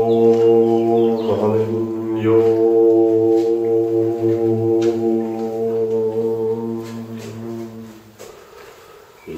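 A man chanting one long, low, steady note of a mantra, held for about eight seconds and then fading out; a new chanted note begins right at the end.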